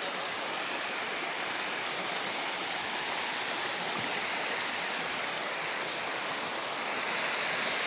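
Waterfall pouring, a steady rushing of water that gets slightly louder near the end.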